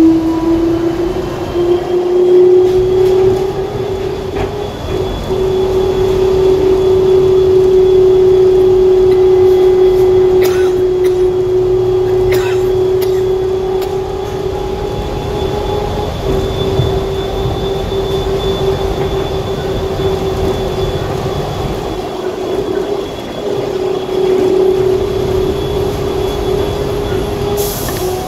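DFW Skylink automated people-mover train running at speed on its guideway, heard from inside the car. A steady whine rises a little in pitch over the first couple of seconds, then holds over a rumbling running noise.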